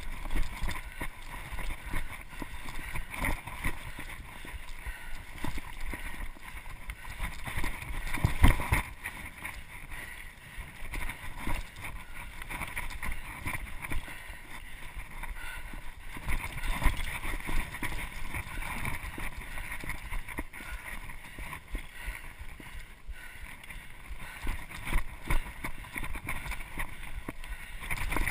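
Mountain bike ridden fast down a dirt singletrack: wind buffeting the camera microphone over the rumble of tyres on dirt, with the bike rattling and knocking over bumps and one heavy jolt about eight seconds in.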